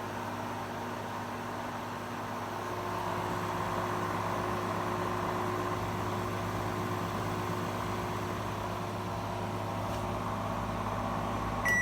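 Mitsubishi microwave oven running on a 500-watt setting: a steady hum from its fan and turntable motor. It cuts off near the end as the first beep of the end-of-cycle signal starts.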